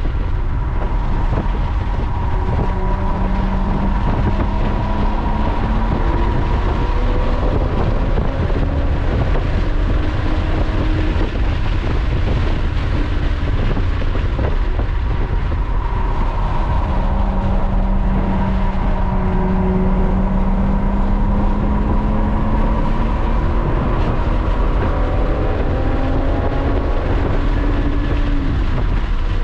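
Lotus sports car at track speed, heard from inside the cabin: engine and road noise over a steady low rumble. The engine note rises under acceleration twice, once a few seconds in and again just past halfway.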